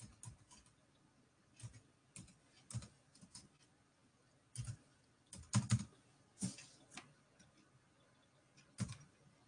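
Computer keyboard typing: short, irregular groups of keystrokes with pauses between them, the busiest run a little past halfway.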